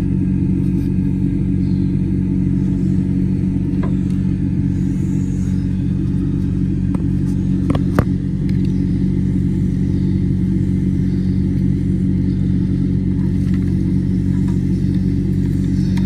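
Vehicle engine idling steadily with an even low hum, with a couple of sharp clicks about halfway through.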